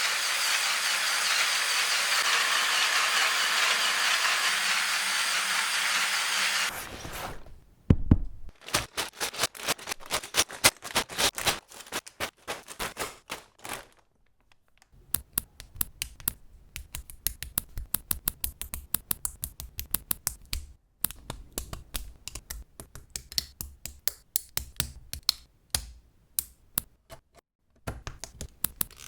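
A steady hiss for about the first seven seconds, then many quick sharp clicks and taps of Mould King 10214 plastic building bricks being handled and snapped together, with a short lull about halfway through.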